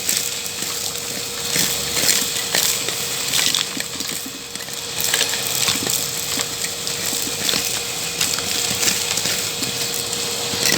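Makita VC3011L construction vacuum running with a steady whine while it sucks up concrete pebbles and sand, which rattle and clatter through the hose in many quick irregular clicks.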